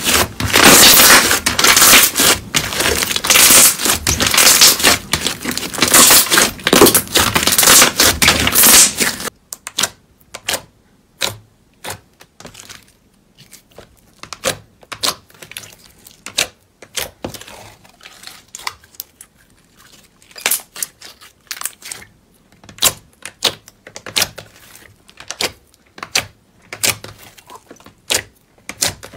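Hands kneading a white slime, with dense, loud crackling and crinkling that stops suddenly about nine seconds in. After that, hands press a clear green slime with scattered small pops and clicks as the slime and its trapped air bubbles are squeezed.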